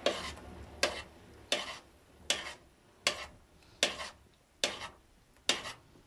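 Metal spoon stirring fruit compote in a stainless steel saucepan, knocking against the pan about once every second. There are about eight short, sharp clinks, each ringing briefly.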